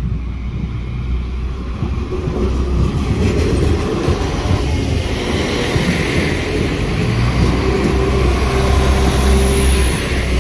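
Northern Ireland Railways diesel multiple unit approaching and passing close by over a level crossing. Its engine drone and the rumble of its wheels on the rails grow louder as it draws level.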